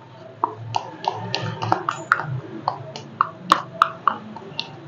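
A pink plastic measuring scoop clicking and tapping against a plastic mixing bowl as cornstarch is spooned into flour. It makes a string of sharp, irregular clicks.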